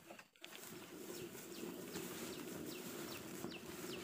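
Wheelbarrow loaded with oil palm fruit bunches rolling over grassy ground with a low, steady rattle, starting about half a second in. Birds chirp in the background with short falling calls, several times.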